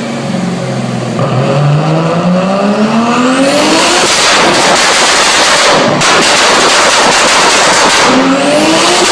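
Modified BMW E30 car engine accelerating hard and loud, its pitch climbing steadily through the revs. There is a brief break about six seconds in, and near the end the pitch climbs again, as after upshifts.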